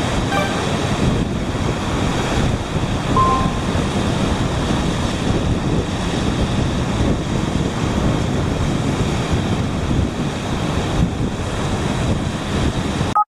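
Sea surf washing and breaking over a rocky shoreline, with wind buffeting the microphone. A steady, loud wash that cuts off abruptly near the end.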